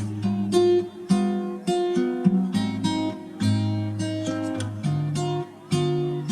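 Background music: acoustic guitar playing plucked and strummed chords at an easy pace.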